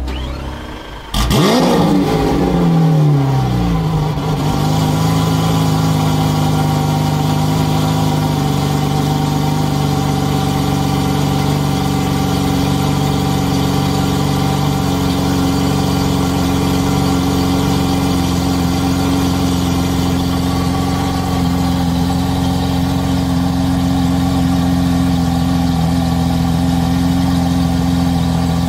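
Lamborghini Aventador V12 with a Capristo exhaust starting up about a second in: a loud flare that falls back over two or three seconds, then a steady idle.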